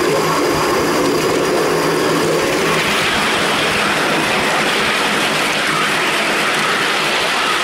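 A 5-inch gauge four-cylinder live steam model of an LMS Coronation Class locomotive running along the track: a steady rush of its wheels on the rails and its working steam. About two and a half seconds in the sound turns brighter and hissier.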